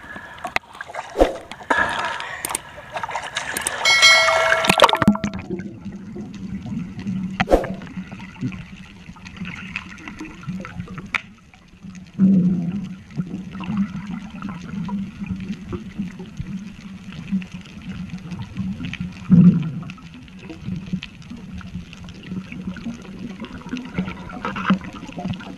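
Surface water splashing and sloshing for the first few seconds, ending in a loud rush about four to five seconds in. After that, the muffled underwater sound of a freedive: a steady low hum with water rushing and bubbling, and a few louder surges and knocks.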